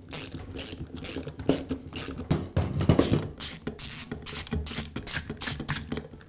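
Socket ratchet clicking in quick, irregular runs as it turns out bolts on a pneumatic nailer.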